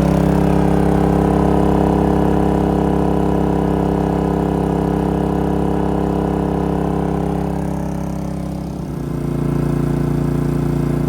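Pulsar 4,000-watt dual-fuel portable generator running on propane at high engine speed, loaded by a trailer air conditioner on high cool; the steady drone dips briefly and changes tone about nine seconds in.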